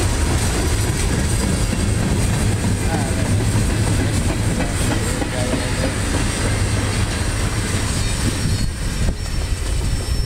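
Freight cars of a passing CSX freight train, tank cars and flatcars, rolling by on the rails with a steady, loud rolling noise of steel wheels on track. The noise eases slightly near the end as the last car passes.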